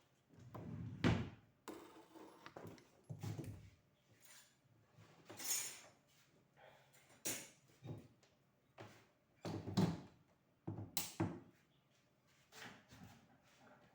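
Irregular clicks, knocks and short clattering handling noises of tools and parts on a workbench, with a few louder thuds about one, three, ten and eleven seconds in.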